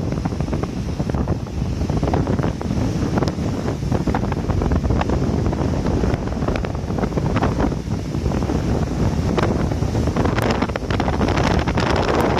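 Strong wind buffeting the microphone in a steady low rumble over the wash of ocean surf breaking on a beach, with a crackle of spray that grows busier near the end.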